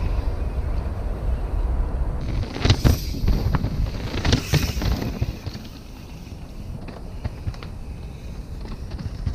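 Wind rumbling on the microphone. About two and a half to five seconds in, mountain bike tyres crunch and clatter over dirt and rock as riders roll through and land jumps; it is quieter after that.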